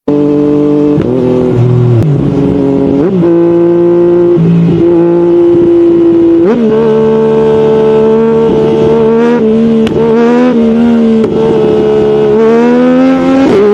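Yamaha MT-09's inline three-cylinder engine running loud, held at steady engine speeds that step up and down several times, with the revs climbing near the end.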